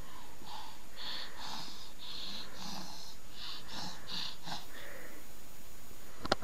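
Baby's breathy, wheezing laughter: a run of short gasping breaths, about two a second, for the first four seconds or so. A sharp click near the end.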